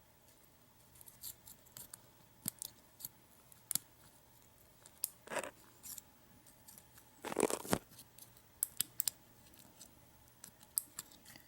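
Lock pick and tension wrench working the pin-tumbler core of a U-Haul disc padlock: scattered sharp metallic clicks and ticks, with longer scrapes about five and seven seconds in.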